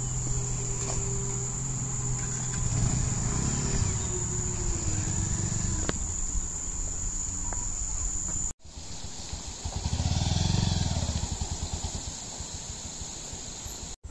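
Motorcycle engine running, swelling louder about ten seconds in, under a steady high-pitched drone of crickets. The sound cuts out briefly about eight and a half seconds in.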